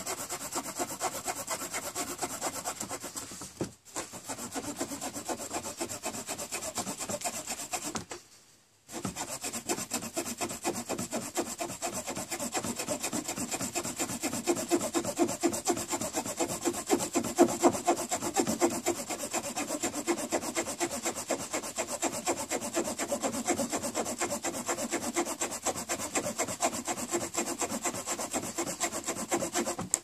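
Victorinox Fieldmaster Swiss Army knife's small folding saw blade cutting across a wooden 1x6 board in rapid short strokes. It breaks off briefly about 4 seconds in and again for under a second about 8 seconds in.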